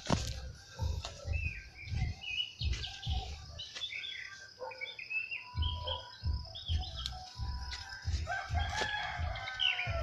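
Small birds chirping in many short, quick calls, with a rooster crowing in one long call near the end. Low thumps about twice a second run underneath.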